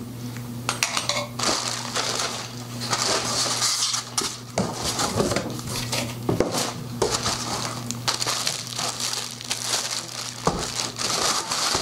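Plastic packaging bags crinkling and rustling while drum-rack hardware is unwrapped and a cardboard insert is pulled from the box, with frequent small clicks and clinks of metal parts. A steady low hum sits underneath.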